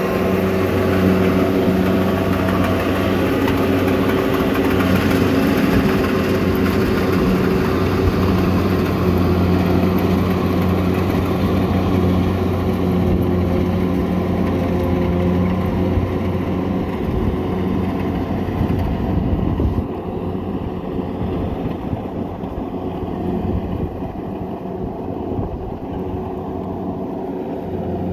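Kubota DC-70 rice combine harvester running steadily while harvesting, with an even engine hum. The sound fades over the last ten seconds or so as the machine moves away across the paddy.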